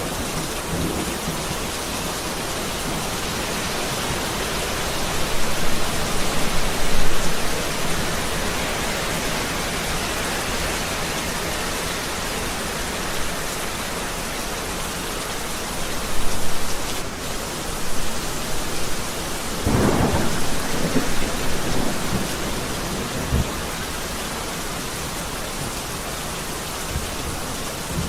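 Heavy rain falling steadily, with rolling rumbles of thunder that swell a few seconds in and again twice in the second half.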